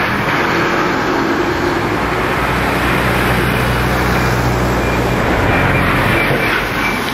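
ND55 diesel locomotive working under load as it hauls a train of oil tank wagons: a steady, loud low engine drone with rumble.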